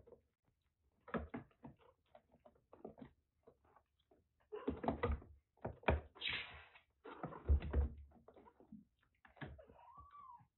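Kittens moving on a cage's plastic floor tray and jostling at a clip-on plastic water bowl: irregular small knocks, taps and scuffs, busiest in the middle.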